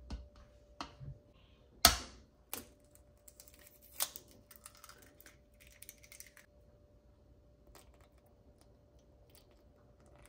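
A few sharp knocks and taps, the loudest about two seconds in, followed by light crackling: a raw egg being knocked against a bowl and its shell broken open over flour.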